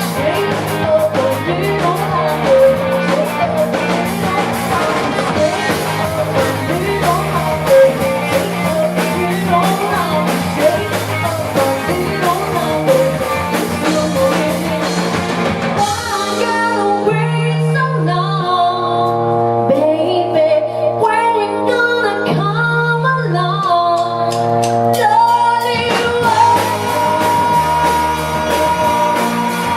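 Live rock band playing a song with vocals, guitar, bass and drums. About halfway through the drums and cymbals drop out, leaving long held bass notes and chords, and the full band comes back in near the end.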